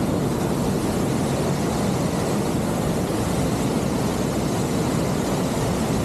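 Waterfall swollen with storm water: a steady, deep rush of heavily falling water that does not let up.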